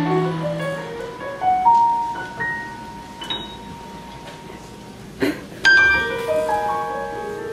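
Quiet passage of a live jazz big-band piece: a baritone saxophone's low held note fades out in the first second, then sparse piano notes ring out one by one. A brief knock comes about five seconds in, followed by a struck piano chord that decays.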